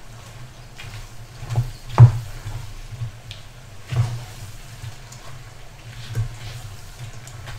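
Wooden spatula stirring onion and chili in a frying pan, knocking against the pan every couple of seconds over a faint frying sizzle; the loudest knock comes about two seconds in.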